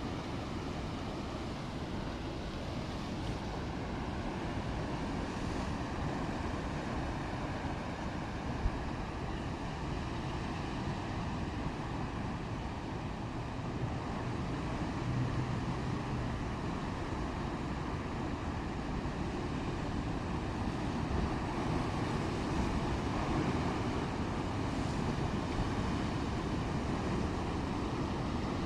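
Rough, stormy sea: a steady, unbroken rush of waves and wind.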